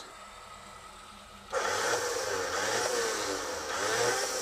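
Quiet at first, then from about a second and a half in a 4x4's engine running steadily during a winch recovery.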